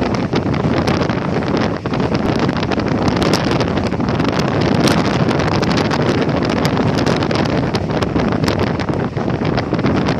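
Wind rushing over the microphone from a moving passenger train, steady and loud, with the train's running noise and scattered short rattles and clicks beneath it.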